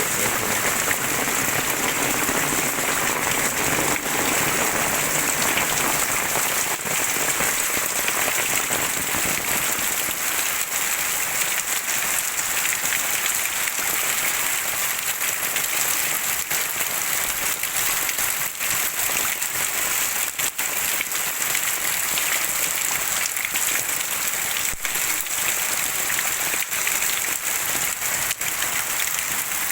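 Heavy rain pouring steadily: a dense, even hiss of countless drops.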